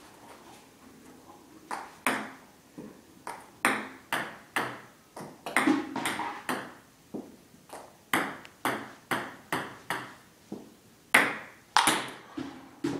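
Ping-pong balls being served: sharp clicks of the paddle striking the ball and the ball bouncing on the table, in quick clusters starting about two seconds in.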